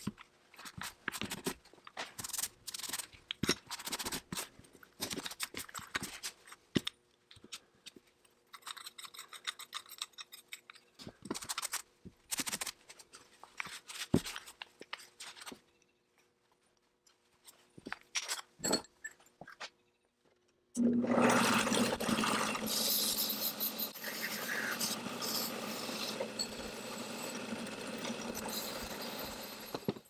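Disassembled steel parts of an antique brace-wrench multi-tool being wiped with a cloth rag and set down, with irregular clinks and rubbing. About two-thirds of the way through, a motor-driven abrasive polishing wheel starts up and runs steadily, loudly, while a metal part is held against it.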